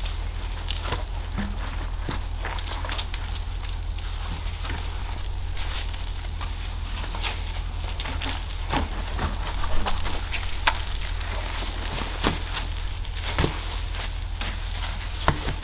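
Wet chenille wash mitt scrubbing soapy foam over the front bumper of a 1984 Porsche 944, the suds giving off irregular small crackles and wet clicks over a steady low hum.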